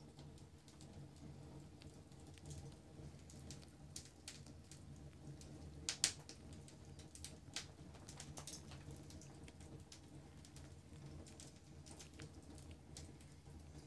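Faint, scattered light taps and skitters of kittens' paws on a rug and wooden floor as they pounce after a laser dot, with a sharper cluster of taps about six seconds in, over a low steady room hum.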